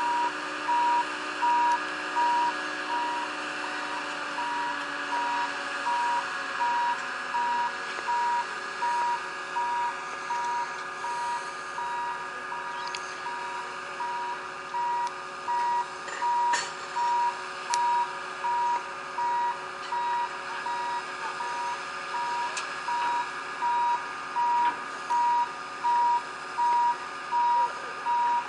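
Railway crane's warning alarm beeping steadily, about three beeps every two seconds, over the steady running of the crane's engine while it moves.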